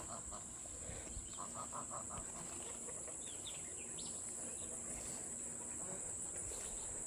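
Farm poultry calling in two quick runs of short, evenly paced calls, one at the start and one about a second and a half in, with a few high bird chirps around three to four seconds. A steady high insect drone runs underneath.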